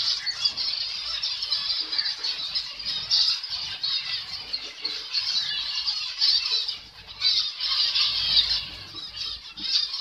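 A large colony of zebra finches calling all at once: a dense, unbroken chatter of many short, high calls overlapping, dipping briefly about seven seconds in.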